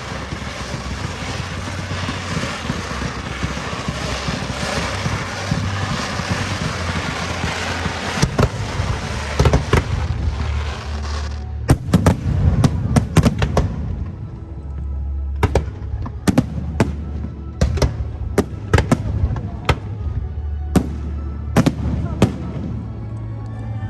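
Aerial fireworks going off: a loud, steady hiss for about the first half cuts off suddenly, followed by a rapid, irregular run of sharp bangs from shells bursting.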